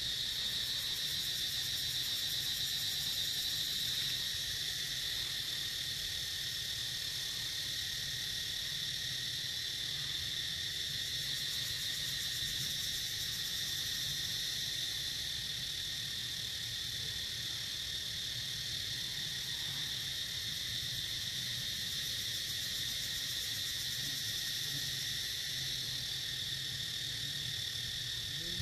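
Insects droning in a steady, continuous high-pitched chorus.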